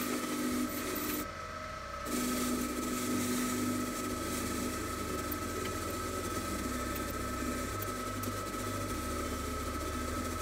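Bench grinder running with a steady whine while a moped's coil-spring rear shock absorber is held against its spinning wheel to clean it, with rubbing and scraping on the metal.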